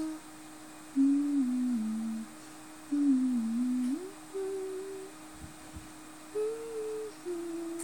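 A person humming a slow tune in low, stepped notes, in several short phrases with pauses between, over a steady faint background tone.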